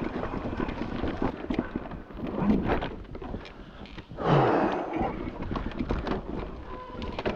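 Electric mountain bike clattering over a rocky trail: a steady jumble of knocks and rattles from the bike and tyres on rock, with a louder rush of noise about four seconds in.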